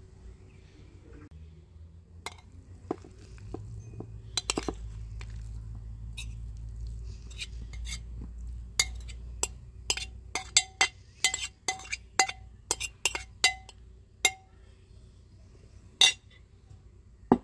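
A kitchen utensil clinking against a dish over and over, about two sharp clinks a second, each with a short ring. The clinks are strongest in the second half.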